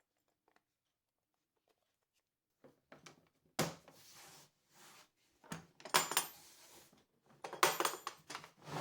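Hard small tool accessories being handled in a carrying case, clinking and rattling in several short bursts after a quiet first few seconds.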